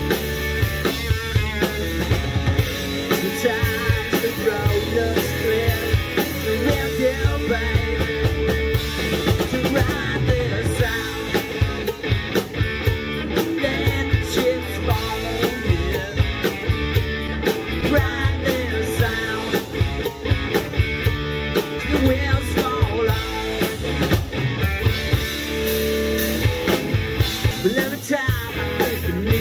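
Rock band playing live: electric guitar, bass guitar and drum kit through stage amplifiers, with steady drum hits.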